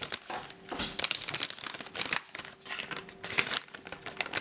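A stand-up plastic dog-treat pouch being torn open at the top and pulled apart by hand, crinkling in quick bursts of crackles.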